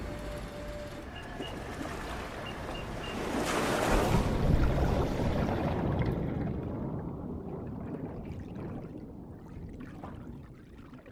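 Open-sea waves washing, then a loud splash about three and a half seconds in as a baited deep-sea lander plunges into the ocean. After that the sound turns muffled and low, with faint bubbling, as the lander sinks underwater.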